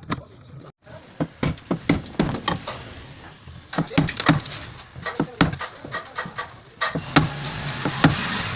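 Irregular knocks and clicks of tools and parts being handled on a Super Asia SA 245 twin-tub washing machine during spinner seal and rotor replacement. A steady low hum with a hiss joins about seven seconds in.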